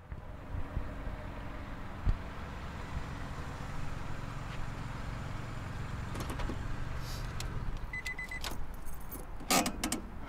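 Sounds from a car: a steady low rumble that fades about eight seconds in, a quick run of electronic chime beeps, then clicks and jangling like keys near the end.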